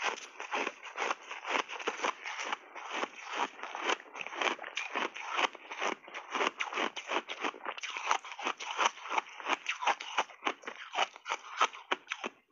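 Close-miked crunching of reshaped ice (crushed ice refrozen into a block) being chewed: rapid crisp crunches, about four or five a second.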